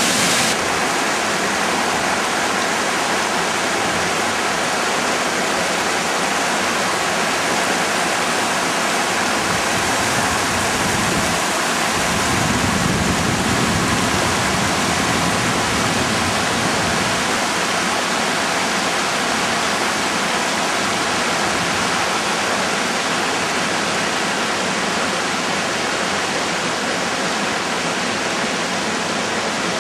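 Small waterfall pouring over a rock ledge into a plunge pool, with the stream rushing over stones below: a steady rush of falling and running water.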